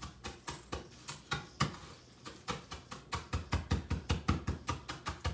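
Repeated knocking of granola being mashed on a cutting board. The strokes are uneven at first, then settle into a quicker run of about four to five a second.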